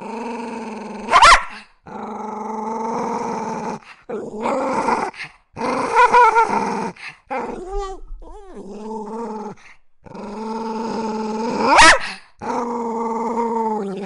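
A small dog growling in long, steady growls with short pauses between them. It breaks twice into a loud, sharply rising yip, once about a second in and again near the end.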